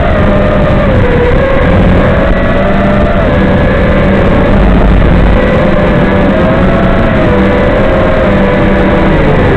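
FPV quadcopter's motors and propellers buzzing continuously, the pitch wavering up and down with the throttle as it flies.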